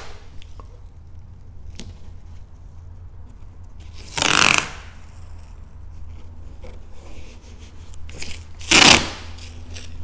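Masking tape pulled off the roll in two quick rips, about four seconds in and again near the end, with faint rubbing and crinkling in between as the tape is pressed along the headlight edges.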